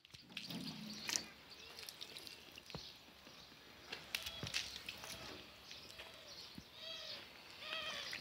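Water poured from a plastic bottle trickling and splashing faintly onto a car's bonnet and windscreen. In the background, an animal gives a series of short calls in the second half.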